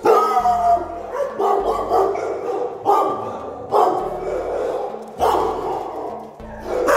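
Shelter dogs barking repeatedly in the kennel runs, with a loud bark coming roughly every second to second and a half.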